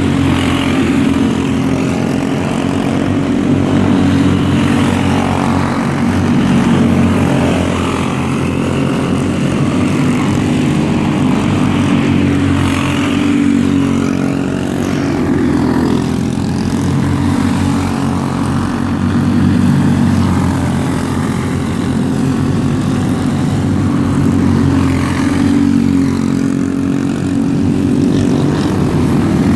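Several Microstock racing karts' small engines running flat out around the track, a steady buzzing drone that swells and eases every few seconds as the pack comes nearer and goes away.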